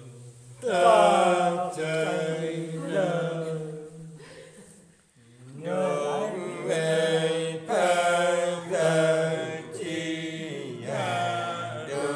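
Unaccompanied Nùng folk singing: a single voice in long, drawn-out chant-like phrases with gliding notes, breaking off for a moment in the middle and then starting a new phrase.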